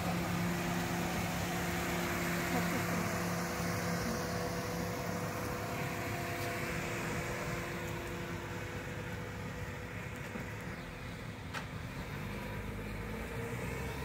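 Small hatchback car's engine running as it pulls away from the curb and drives off, its steady hum slowly fading into the distance.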